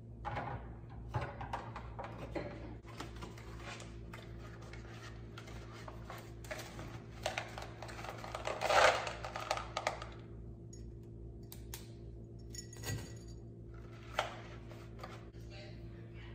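Items being handled and set down on a bar cart: a scatter of light clinks and knocks from glassware, containers and a small box, with the loudest clatter about nine seconds in. A low steady hum lies underneath.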